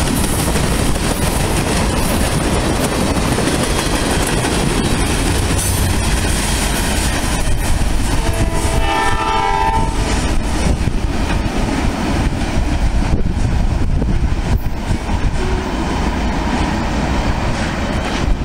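Freight train of tank cars rolling past, its wheels clattering over the rail joints with a steady rumble. About eight and a half seconds in, a train horn sounds once for about a second and a half.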